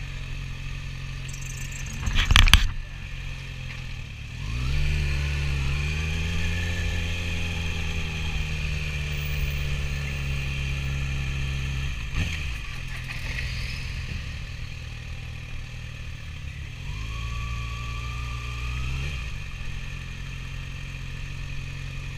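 Kawasaki ZX-6R's 600cc inline-four engine running at low revs as the motorcycle rolls slowly, with a short loud burst of noise about two seconds in. From about four seconds the engine pitch rises and then holds steady.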